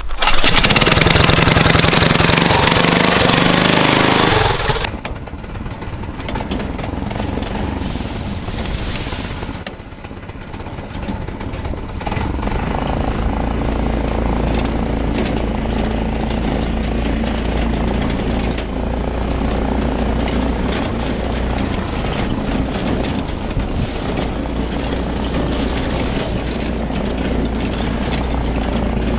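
Go-kart's small single-cylinder engine running with its governor tied off and breathing through an RLV muffler. It is very loud for the first few seconds, then runs steadier and quieter as the kart drives on, with a brief dip around ten seconds in.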